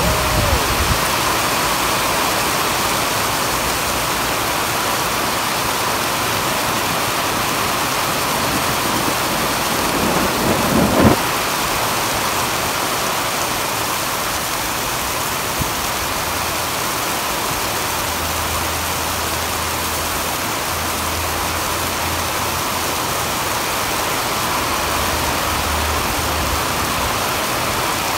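Steady rain falling on a concrete yard and puddles, an even hiss. About eleven seconds in, a brief swelling noise ends in a sharp knock.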